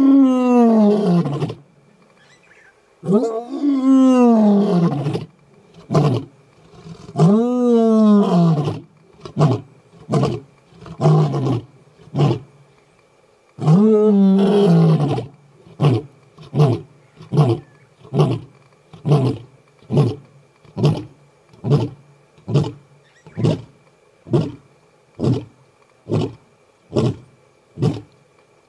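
Adult male lion's roaring bout: several long, deep roars that rise and then fall in pitch, with shorter grunts between them, ending in a long run of short grunts, about three every two seconds, that slowly space out. This is a territorial roar, a challenge to rival males.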